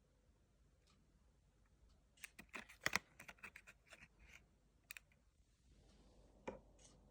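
Faint clicks and taps in a quick, irregular run from about two seconds in to five, with one more tap near the end.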